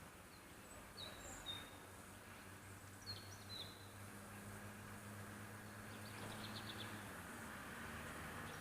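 Faint bird chirps, a few short high calls and then a quick run of them, over a steady background hiss and a low hum.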